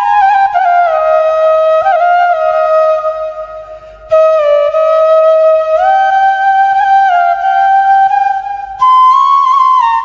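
Background music: a solo flute playing a slow melody of long held notes with slides between them. It fades away about three seconds in and picks up again about a second later.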